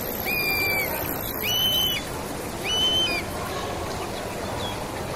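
Three short, high whistle-like tones, each swelling up at the start and dropping off at the end, spaced about a second apart in the first three seconds, over a steady low murmur of voices.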